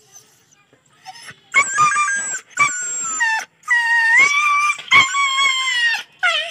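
Injured street dog crying out in pain as its maggot-infested wound is treated: high-pitched, drawn-out cries, three long ones starting about a second and a half in and a short one near the end.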